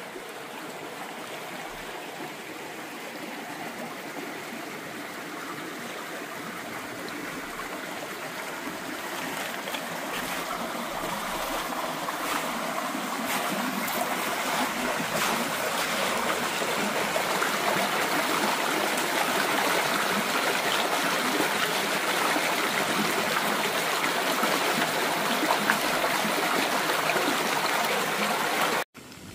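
Running water of a small stream, trickling steadily. It grows gradually louder through the first half, then holds steady.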